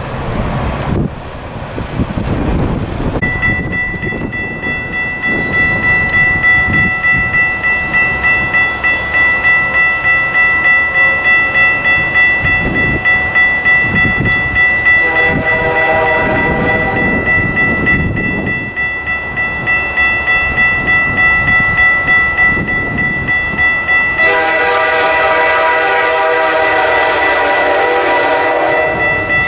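Approaching passenger train sounding its multi-note diesel locomotive horn: a blast about halfway through and a long blast near the end. Under it a bell rings steadily about one and a half strokes a second over the rumble of the train.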